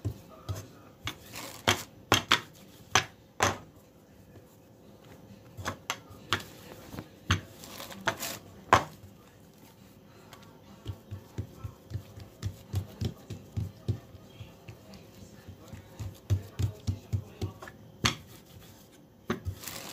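Hands patting and pressing a thin sheet of pastry dough on a countertop while a metal rolling pin works it. Irregular sharp taps and knocks, then a run of softer thumps about two or three a second, then more taps near the end.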